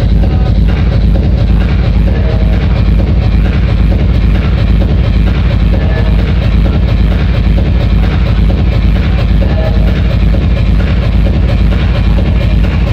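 Loud electronic dance music played over a club sound system, with a heavy, overloaded bass and short synth notes recurring every few seconds.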